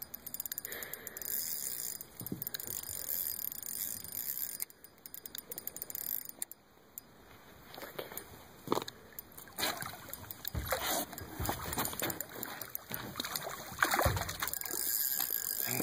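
A large hooked brown trout splashing and swirling at the surface beside the boat, the loudest splash about 14 seconds in as the landing net goes into the water. Between the splashes come runs of rapid clicking from the spinning reel.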